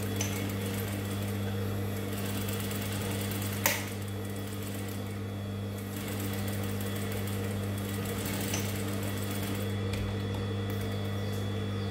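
Gemsy single-needle industrial sewing machine top-stitching pleated mask fabric: a steady motor hum with the needle running, and one sharp click about three and a half seconds in.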